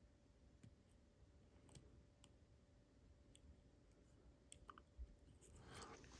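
Faint, scattered clicks of a lock pick probing the pins of a Mul-T-Lock Junior pin tumbler lock under light tension, near silence between them. A soft rustle rises near the end.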